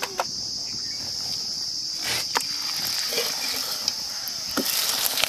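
Insects droning steadily at a high pitch, with a few sharp clinks of a wire slotted spoon against aluminium cookware. Near the end hot oil starts to sizzle as a raw puri goes into the wok.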